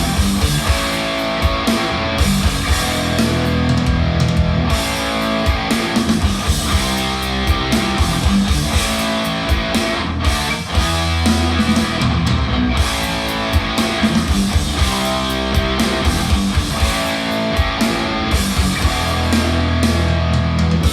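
Recorded rock music with electric guitar and a steady beat, played back as a DAC listening demo.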